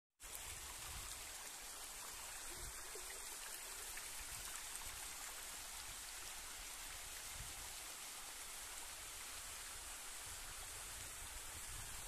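Steady rush of running water: a small hillside waterfall and the shallow stream it sends across stones and gravel.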